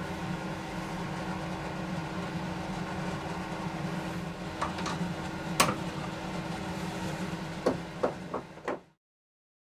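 Steady machine hum of a wood lathe slowly turning a finished wooden plate, then a handful of sharp knocks and clicks as the plate is handled and taken off the chuck. The loudest knock comes a little past the middle. The sound cuts off abruptly near the end.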